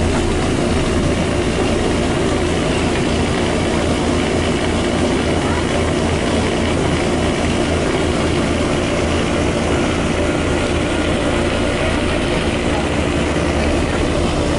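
Diesel bus engine running steadily as a low drone, heard from on board the moving bus.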